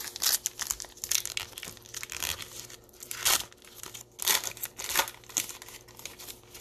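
Foil wrapper of a trading-card pack crinkling and tearing as it is ripped open by hand, in an irregular run of crackling rustles that are loudest in the middle.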